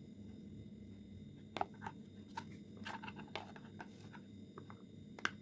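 A metal spoon clicking and tapping against a plastic bowl while sauces are spooned in, in scattered irregular taps with two sharper knocks, over a faint steady hum.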